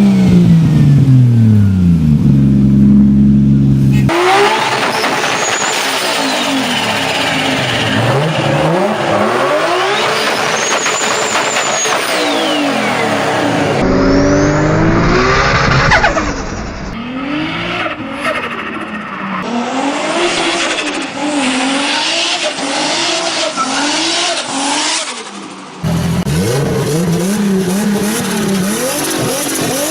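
Turbocharged car engines revving up and dropping back over and over, with turbo flutter as the throttle closes. The engine pitch sweeps up and down, and the sound changes abruptly several times as one car gives way to the next.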